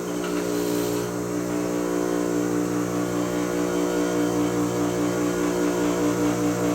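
Electric motor of an older bench grinder running steadily at full speed: a steady hum with a quick rhythmic pulse in it, from wheels that are no longer well balanced.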